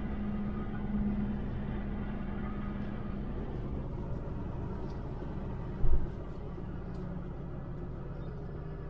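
Steady engine and road hum inside a moving Jeep, with one short low thump about six seconds in.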